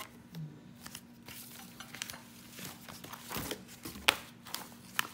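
Glossy paper brochure pages being handled and turned, with crinkling rustles and several sharp clicks and taps, the loudest about four seconds in. A faint steady hum runs underneath.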